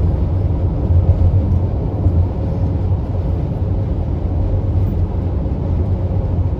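Steady low rumble of a car moving at highway speed, tyre and engine noise heard from inside the cabin.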